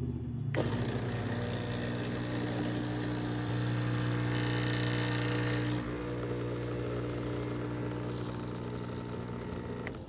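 De'Longhi Stilosa espresso machine's 15-bar vibratory pump running with a steady buzzing hum as it pushes water through. A brighter hiss rises over it for a couple of seconds in the middle.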